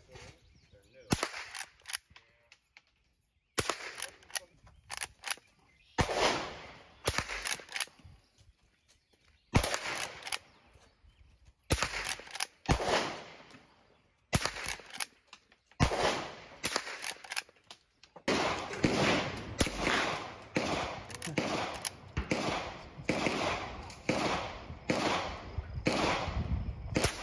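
A .22 LR Henry H001 lever-action rifle firing shot after shot, each a sharp crack, with the lever cycled between shots. The shots come irregularly at first, then in a quick steady run of about three every two seconds in the last third.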